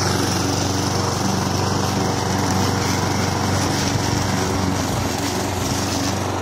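Petrol walk-behind rotary lawn mower's small engine running steadily as the mower is pushed through grass.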